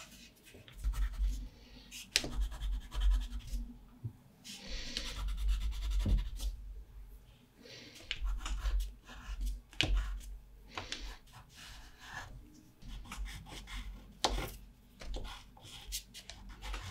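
Water-soluble wax pastel crayon (Caran d'Ache Neocolor II) scribbling on heavy watercolour paper: quick scratchy strokes in uneven bursts with short pauses and small taps between them.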